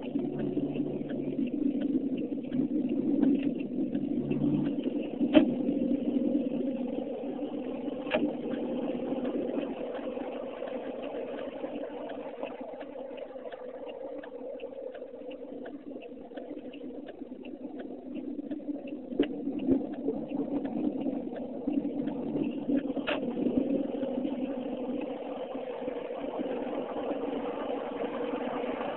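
Car running down a highway, heard from inside the cabin: a steady hum of engine and road noise. A low engine drone sounds for the first few seconds, and three sharp clicks stand out.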